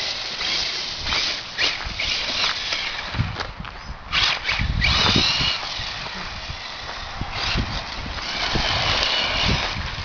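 Brushless electric motor of an RC rail buggy whining in repeated bursts as it is throttled up and down, with a few dull knocks about three to five seconds in.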